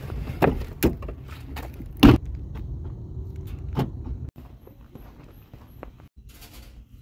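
Car door being opened from inside with clicks of the handle and latch, then shut with a heavy thud about two seconds in, followed by a few lighter knocks.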